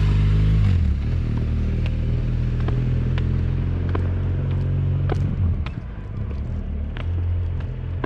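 A motor vehicle's engine running at a low idle, its pitch shifting slightly about a second in and wavering after about five seconds. Scattered light clicks sound over it.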